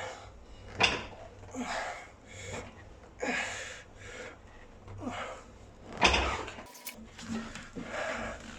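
A lifter's hard exhalations, about one a second, during a set of reps on a weight-stack leg machine, with the stack clanking a couple of times.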